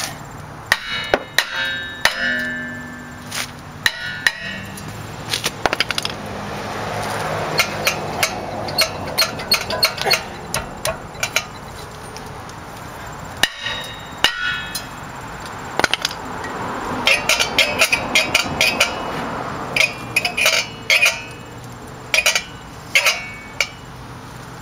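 Hammer blows on a seized rear brake rotor of a 2005 VW Touareg, driving it off the hub: repeated sharp metallic strikes, spaced out at first, then a quick run of several a second over the last third.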